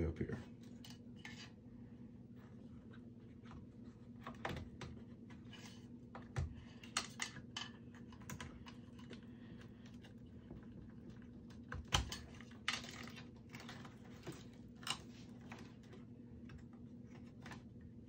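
Irregular light clicks, taps and a few knocks and short scrapes of parts being handled and unclipped inside an open Dell PowerEdge R610 server chassis, the loudest knock about two-thirds of the way through, over a steady low hum.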